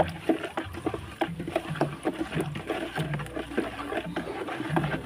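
Water swishing and splashing in a plastic basin as a flat stick stirs about 20 litres of foliar fertilizer solution to dissolve it, with quick irregular clicks and splashes several times a second.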